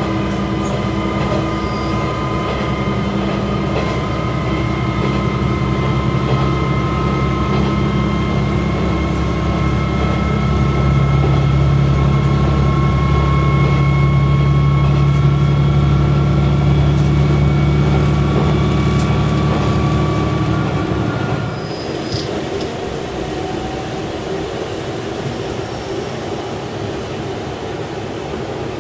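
Single-car diesel railcar under way: a low engine drone with steady high whining tones over it. About three-quarters of the way through, the drone and whine fall away and the train runs on more quietly, as when the engine is throttled back to coast.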